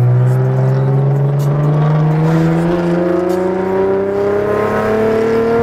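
Car engine heard from inside the cabin, accelerating hard with its revs climbing steadily in one gear.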